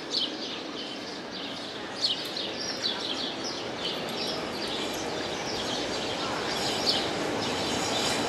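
Small birds chirping again and again over steady city street noise, which slowly grows louder toward the end.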